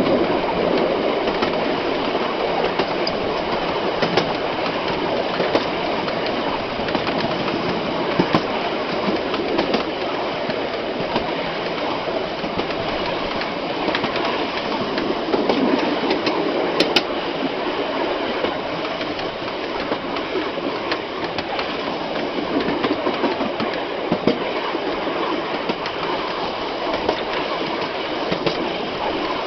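Heritage passenger train carriages running along the track, heard from the rear of the train: a steady rumble of wheels on rail with scattered sharp clicks.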